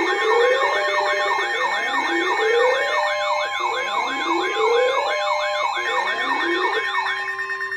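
Several electronic warning sounds layered at once, like an emergency alert broadcast. A siren yelp sweeps up and down about three times a second, a rising whoop repeats about every two seconds, and steady alert tones hold underneath. The steady tones cut off near the end.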